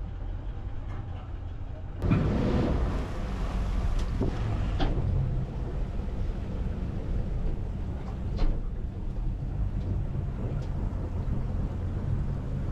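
Yamaha 300 V6 four-stroke outboard running as the boat pulls away, its propeller wash churning the water and wind buffeting the microphone. The sound jumps louder about two seconds in.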